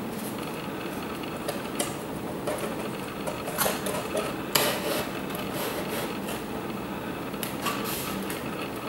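Irregular light taps and scrapes of foam-board model parts being handled and pressed into place, over a steady hiss with a low hum.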